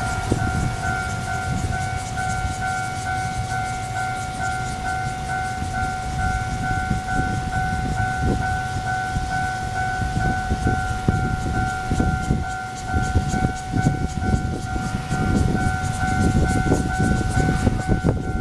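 Railway level crossing warning signal sounding a steady, quickly repeating electronic ding, over the low rumble and rail clatter of a Taiwan Railways push-pull Tze-Chiang express train passing over the crossing.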